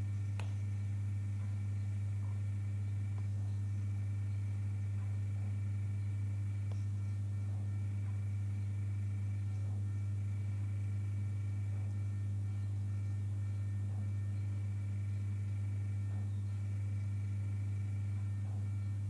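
Steady low electrical hum with a fainter overtone and a few thin, high steady tones above it, unchanging throughout.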